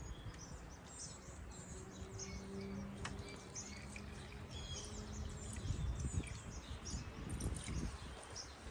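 Birds chirping over a low rumbling background noise, with a faint steady hum in the first half.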